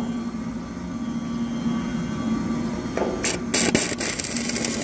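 A hand power tool working at a steel column's base plate, starting about three seconds in with a brief burst, then running harder with a rapid rattle until near the end, over a steady low hum.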